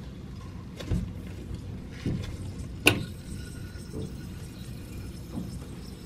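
Faint steady trickle of water in a running toilet's tank, the sign of a slow leak that the owner later puts down to a warped flapper. A few light knocks and one sharp click about three seconds in as a gloved hand handles the parts in the tank.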